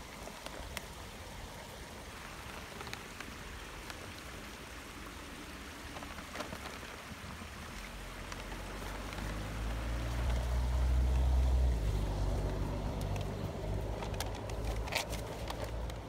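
Small stream babbling, with the low rumble of a passing motor vehicle coming in about halfway, loudest about three quarters through, then easing off.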